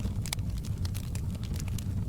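Fireplace fire crackling, with frequent irregular sharp pops and snaps over a steady low rumble of the flames.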